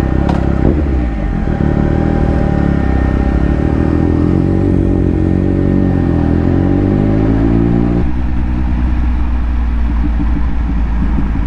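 Triumph Speed Triple RS three-cylinder engine running under way through a Scorpion titanium exhaust, its pitch falling and then rising. About eight seconds in the higher part of the sound drops away suddenly, leaving a lower, rougher engine note as the bike slows.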